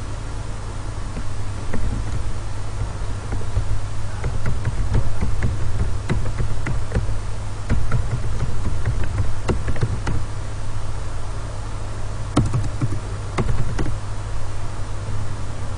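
Computer keyboard typing: irregular runs of key clicks that come thickest through the middle and again near the end, over a steady low hum.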